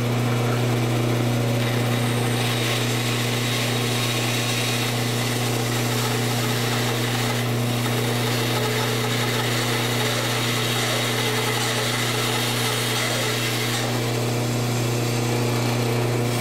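Band saw running with a steady hum while its blade cuts dovetail waste from a walnut board, up close to the scored line.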